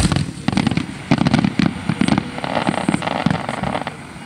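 Aerial fireworks shells bursting in quick succession: a loud bang right at the start, then a rapid string of booms with a patch of crackling stars, thinning out near the end.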